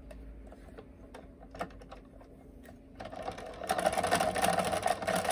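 Scattered light clicks, then about three seconds in a small machine starts up with a loud, steady mechanical whirring.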